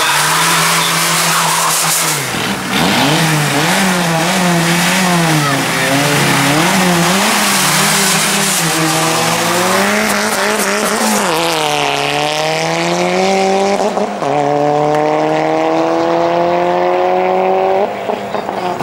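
Tuned car's engine revved up and down repeatedly at the start line, then accelerating hard, the revs climbing in long rising sweeps broken by two gear changes. The engine sound cuts off abruptly near the end.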